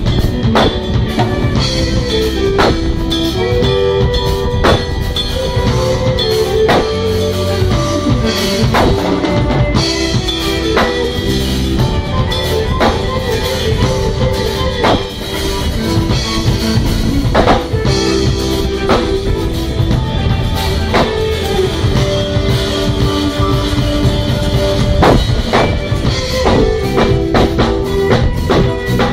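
Live instrumental jam: a drum kit playing a steady groove with kick, snare and rimshots under keyboards, the keyboard split to cover both the chords and the bass line.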